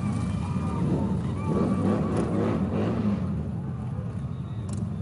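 Vehicle engines running with a steady low rumble, with faint voices mixed in.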